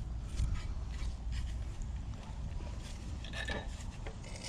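Light clinks and scrapes of metal engine parts being handled, with a few sharper clicks about three and a half seconds in, over a low steady hum.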